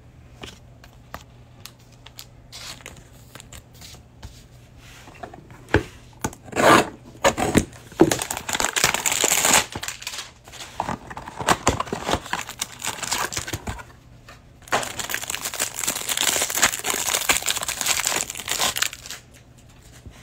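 A trading-card hanger box being opened: the card stack's clear plastic wrapper crinkles and tears. Scattered light taps come first, then bouts of loud tearing and crinkling from about eight seconds in, with the longest stretch near the end.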